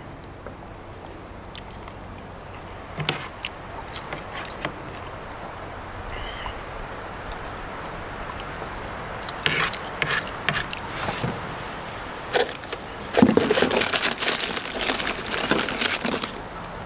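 A person eating at the table: a few light clicks of a metal spoon against a plastic tray, then from about halfway through, louder irregular chewing and scraping noises.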